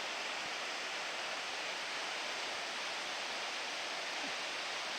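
River water rushing, a steady even hiss.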